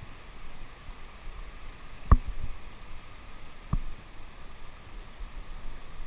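Steady rush of river water, with two sharp knocks: a loud one about two seconds in and a lighter one about a second and a half later.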